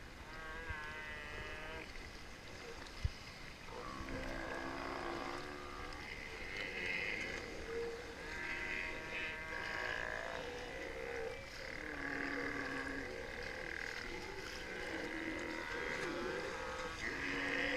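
A group of Steller sea lions calling, with many overlapping roars and growls, some deep and some higher-pitched, continuing throughout.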